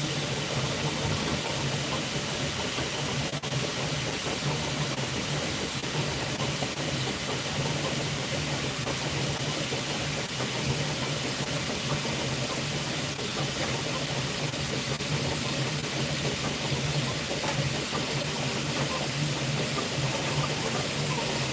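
Bambu Lab P2S 3D printer running a print: a steady hum with an even hiss over it, unchanging throughout.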